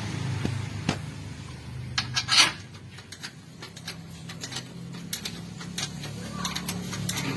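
Scattered metallic clinks and knocks of hand tools and metal parts, with a short louder rasp about two seconds in, over a steady low hum.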